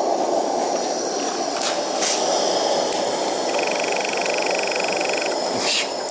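Homemade blast furnace running flat out: a steady rush of flame blasting out of the hole in its lid while it heats a crucible of gold toward melting. A steady high whine joins in a little past the middle for a couple of seconds, with a few faint crackles.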